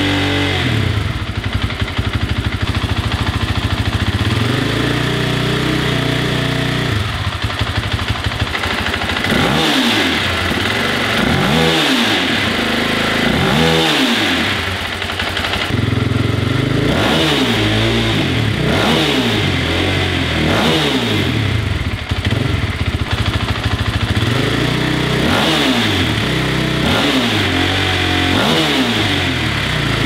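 2024 Husqvarna FE 501s single-cylinder four-stroke engine breathing through a Pro Moto billet spark-arrestor end cap, idling steadily for several seconds, then blipped over and over, each rev rising and falling quickly.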